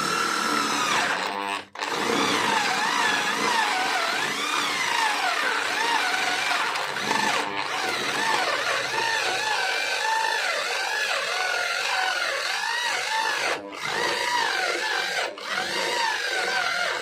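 Handheld electric power tool running against wood, its pitch wavering up and down as the load changes, with brief breaks in the sound about two seconds in and twice near the end.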